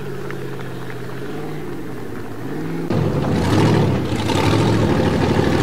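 A formula off-road hill-climb buggy's engine revving, its pitch falling and rising as the throttle is worked. About three seconds in, the sound jumps abruptly to a louder, rougher full-throttle run.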